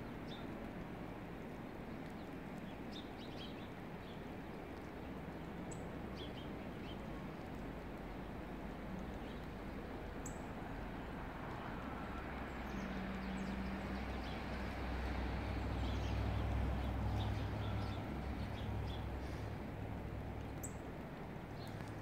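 Small birds chirping in short, high calls scattered through a steady outdoor hiss, with a low rumble that swells and fades about two-thirds of the way through.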